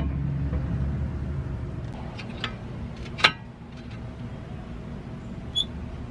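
Brake caliper parts being handled: several short, sharp metallic clicks and taps, the loudest about three seconds in, over a low steady hum.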